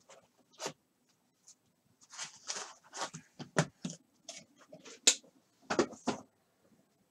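Hands opening a cardboard trading card box and handling its contents: scraping and rustling with several sharp clicks and taps. The sharpest click comes a little past halfway.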